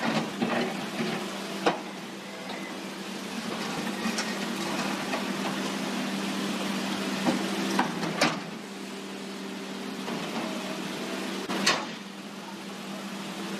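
Volvo excavator's diesel engine running steadily over the rush of water through a rocky channel, with four sharp knocks as the bucket strikes stone.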